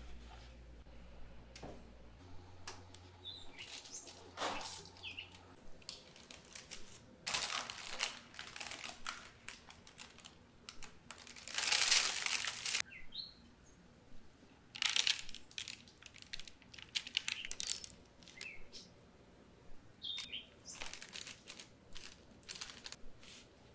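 Parchment paper rustling and crinkling in short bursts as the baked brownie slab is handled in it, loudest about halfway through. A few brief high chirps are heard among the rustles.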